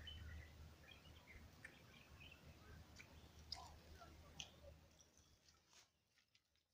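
Near silence: faint, scattered bird chirps and a few sharp clicks over a low rumble, fading out near the end.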